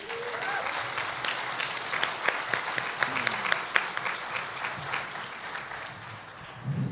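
Audience applauding, a dense clatter of many hands clapping that fades away near the end.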